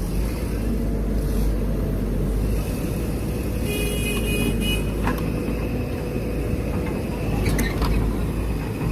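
Heavy machinery's diesel engine running steadily. A brief high squeal comes about four seconds in, and a few sharp clicks follow.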